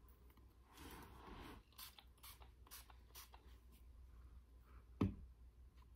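Quiet rustling and small taps of objects being handled on a table, with a single sharp knock about five seconds in.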